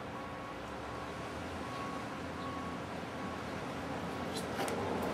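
Faint metallic clicks near the end as a piston ring is worked by hand onto a Ford 302 piston, over a steady background hum with a faint repeating high tone.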